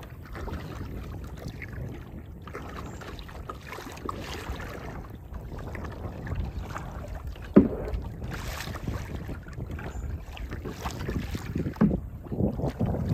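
Kayak paddling: paddle strokes dipping and splashing in the water, with wind buffeting the microphone. Two sharp knocks stand out, one about seven and a half seconds in and one near twelve seconds.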